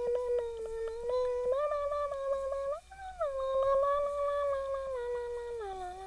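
A person humming a tune in long held notes that step up and down in pitch, with light clicks scattered throughout.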